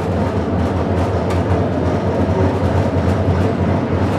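Restored PCC electric streetcar running along its track, heard from on board: a steady low rumble of motors and wheels on the rails, with a few faint clicks.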